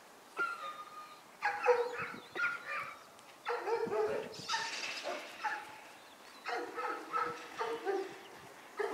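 A dog barking repeatedly, in several bouts of short barks.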